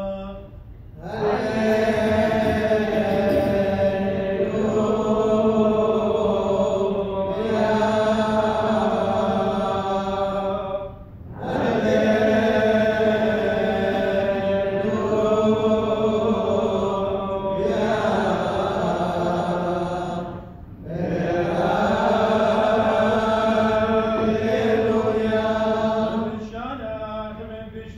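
Syriac liturgical chant of the Church of the East sung in long held phrases, three of them with short breaks about eleven and twenty seconds in.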